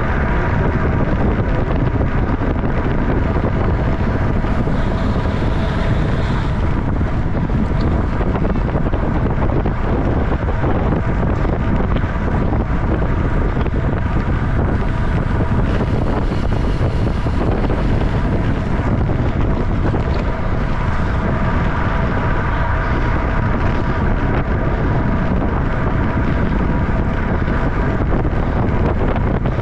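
Steady wind noise buffeting the microphone of an action camera on a road bike ridden at about 28 mph, with faint faint whirring tones underneath.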